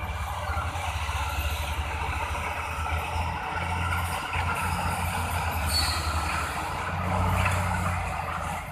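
Diesel engines of crawler bulldozers and dump trucks working across an earthmoving site, a steady low rumble.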